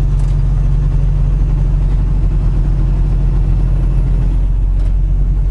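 A semi-truck's diesel engine running steadily at highway cruising speed, heard from inside the cab as a deep, even hum over road noise.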